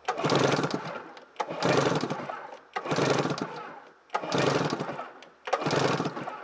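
2002 Polaris Edge X 600 twin-cylinder two-stroke engine being cranked over for a compression test on the mag-side cylinder, in about five separate runs, each strong at first and fading over about a second. The compression builds toward the 125 PSI reading.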